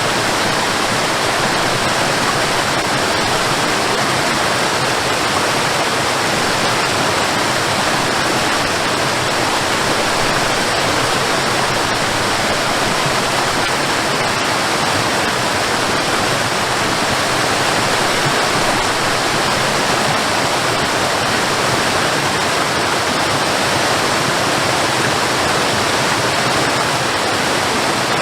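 Waterfall: a steady, dense rush of falling water that does not change.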